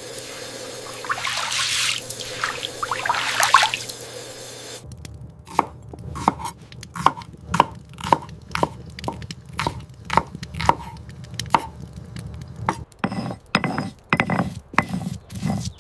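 Two short bursts of running water, then from about five seconds in a knife chopping on a cutting board at about two strokes a second, each stroke a sharp knock with a short ping; near the end the strokes turn heavier and duller.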